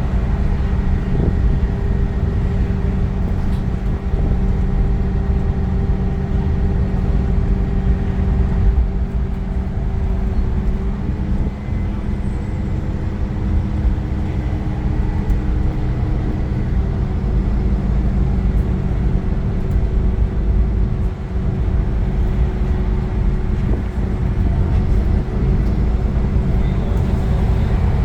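Iveco Crossway LE 12 bus with its Cursor 9 six-cylinder diesel and ZF gearbox running, heard on board: a heavy low rumble with steady whining tones above it. About eleven seconds in, one of the whine tones steps down in pitch.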